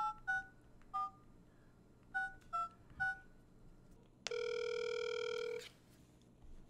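Flip phone keypad tones: six short two-note beeps as a number is dialed, unevenly spaced over about three seconds. About a second later comes one long buzzy tone lasting just over a second as the call starts to go through.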